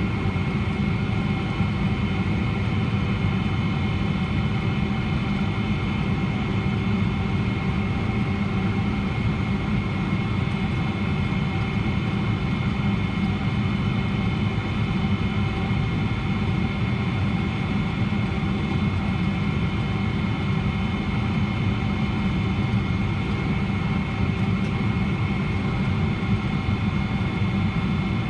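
Cabin noise of a Boeing 777-300ER on final approach, heard from a window seat over the wing: a steady low rumble of airflow and GE90 turbofan engines, with steady high whining tones on top.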